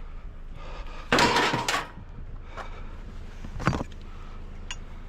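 Scrap being handled: a loud scraping clatter about a second in, lasting under a second, then a single sharp knock a couple of seconds later.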